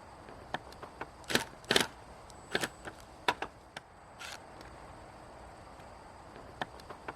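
A series of sharp clicks and knocks, about six, the loudest a double knock near two seconds in, over the steady hum of distant highway traffic.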